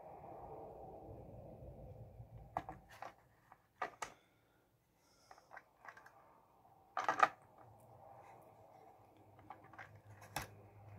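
Faint clicks and taps of an OO gauge model wagon being handled and moved about on a plastic display stand, the loudest cluster about seven seconds in. A faint steady hum runs under the first two seconds.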